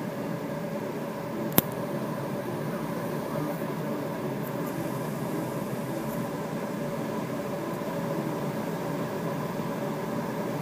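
Steady rush of airflow inside the cockpit of a Duo Discus two-seat glider on its landing approach, with a single sharp click about one and a half seconds in.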